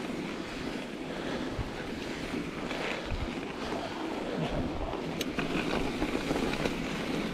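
Mountain bike on Schwalbe Ice Spike studded tires rolling over packed snow, with wind rushing over the action camera's microphone. There is a sharp tick about five seconds in.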